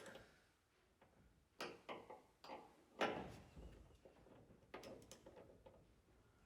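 Faint, irregular clicks and knocks of hand tools on a bolt while an M8 rivnut is drawn tight, about half a dozen in all, the loudest about three seconds in.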